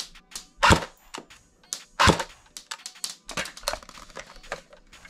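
Airsoft AK-47 firing two single shots of 0.25 g BBs about a second and a half apart through a chronograph fitted on its muzzle, for a velocity reading of about 270 fps. Lighter clicks and taps of handling follow.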